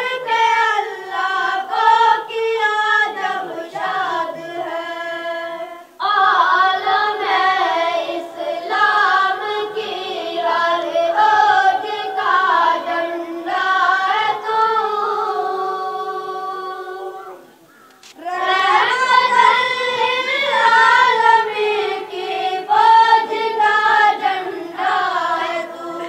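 Unaccompanied singing of an Urdu tarana about the flag of Islam, in long drawn-out melodic phrases with held notes. It breaks off briefly about 6 seconds in and again around 18 seconds.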